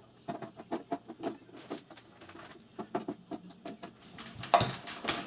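Quick, irregular small clicks and taps as control caps are worked off an Allen & Heath Xone:43 DJ mixer's panel one after another, with a louder scrape of handling near the end.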